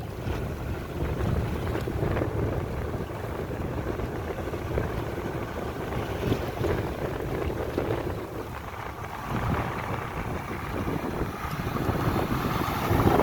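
Wind buffeting the microphone, a steady low rushing noise that swells a little near the end.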